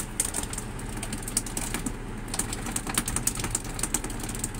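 Spinning fishing reel clicking irregularly while a strong fish is fought on a hard-bent rod, over a steady low hum.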